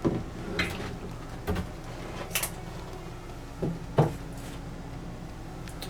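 A handful of light, separate knocks and clunks from an old solid-surface countertop piece being handled and set down, the loudest about four seconds in, over a faint steady hum.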